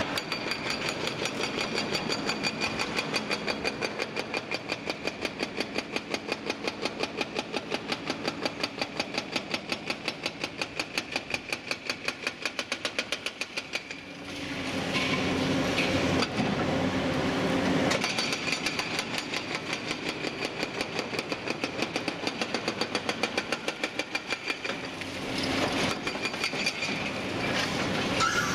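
Liebherr 954 high-reach demolition excavator working its jaw on a concrete building frame: engine and hydraulics running with a fast, regular pulsing. Louder stretches of concrete breaking come about halfway through and again near the end.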